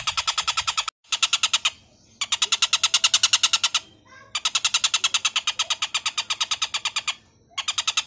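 Oriental dollarbird (tengkek buto) giving its harsh, rasping chatter: rapid runs of about ten notes a second, one to three seconds long, broken by short pauses.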